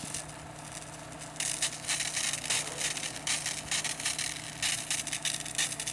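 A hose's water jet spraying and spattering onto an elephant lying in mud: a crackling hiss that grows louder about a second and a half in and comes in uneven surges. An engine runs steadily underneath.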